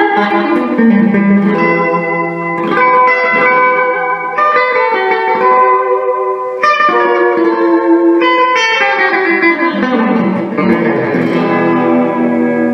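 Gretsch Electromatic G5420T hollow-body electric guitar played through a Digitech Obscura delay pedal: a run of picked notes and chords, each trailed by echoing repeats. About ten seconds in, the held notes bend down in pitch.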